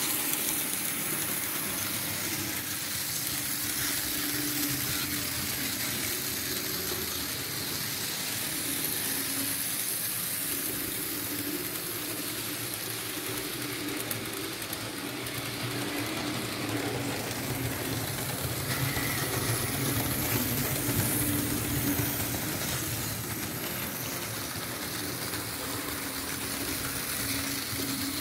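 Märklin H0 model V 200 diesel locomotive and its passenger coaches running on the layout's track: a steady whirring and rumbling of the electric motor and wheels on rail, with a faint motor hum that comes and goes.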